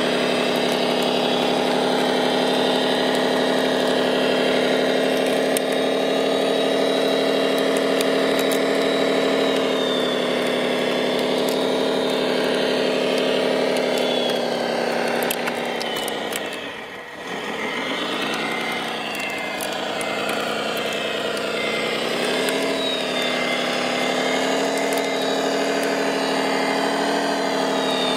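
Engine sound of a remote-controlled scale Caterpillar D9 bulldozer model running as it crawls through mud, a steady drone. About two-thirds of the way through it dips in pitch and loudness, then picks up again.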